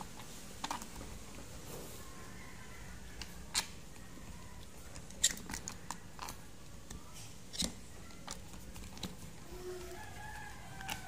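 Irregular sharp plastic clicks and knocks from handling an Ingco RGH9528 rotary hammer: the SDS chuck collar and mode selector being worked while fitting a chisel.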